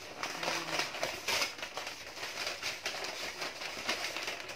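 Packing paper rustling and crinkling as sheets are lifted out of a cardboard box, a continuous run of irregular crackles. A brief hum of a man's voice about half a second in.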